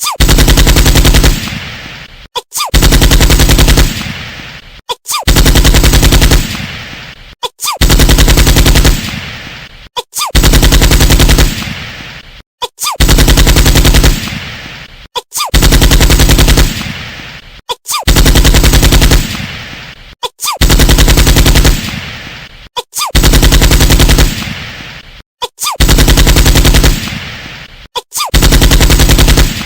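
Looped ringtone sound effect: a brief lead-in sound, a short gap, then a loud, distorted burst about a second long that trails away. The cycle repeats about every two and a half seconds, about a dozen times.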